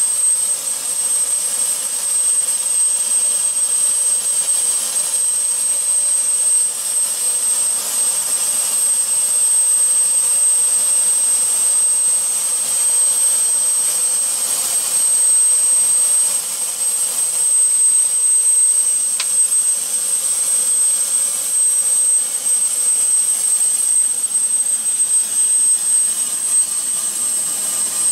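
Helicopter turbine engine running steadily while the helicopter sits landed, heard from inside the cabin: a constant high-pitched whine over a rushing noise, with one brief click a little past the middle.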